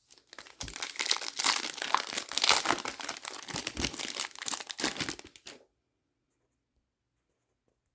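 Foil wrapper of an Upper Deck hockey card pack crinkling and tearing as it is opened and handled. The noise cuts off abruptly about five and a half seconds in.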